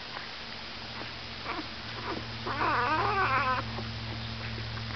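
Newborn Great Pyrenees puppy suckling at a milk bottle with soft wet clicks. About two and a half seconds in comes a wavering, cat-like squeal lasting about a second.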